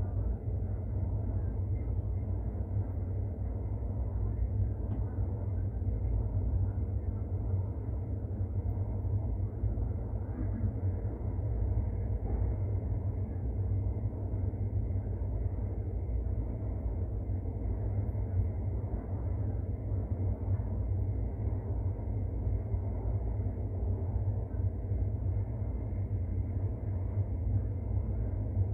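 Alstom AS-14 metro train running through a tunnel between stations, heard from inside the car: a steady low rumble that holds level throughout.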